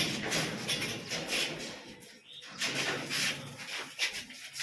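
Budgerigars chirping and chattering in quick, overlapping calls, with some clattering among them.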